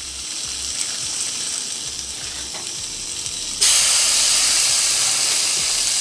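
Fish fillets sizzling on a hot electric grill plate. About three and a half seconds in, the sizzle suddenly gets much louder as a second seasoned fillet is laid on the grill.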